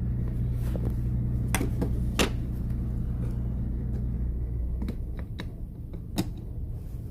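Clicks and light knocks of the small plastic trimmer housing and its parts being handled and fitted back together, over a steady low hum that cuts off about five seconds in.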